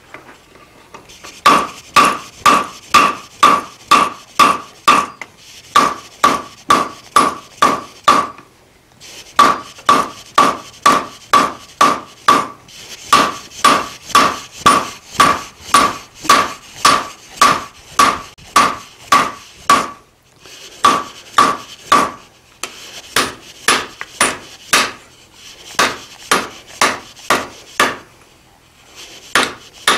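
Hand hammer striking a red-hot mild steel bar on an anvil, drawing it out: about two to three blows a second in runs of several seconds with short pauses between them, each blow with a ringing note from the anvil.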